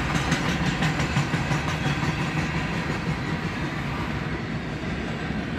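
Freight train cars rolling past, a steady, even rumble, heard from inside a vehicle's cab.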